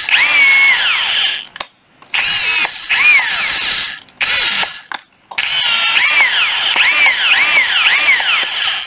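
Hilti TE 6-A36 cordless brushless rotary hammer running free in drill mode, its motor whining up to speed and winding down with each squeeze of the variable-speed trigger. There are a few separate runs, then in the last few seconds the pitch rises and falls about twice a second as the trigger is feathered. It runs smoothly.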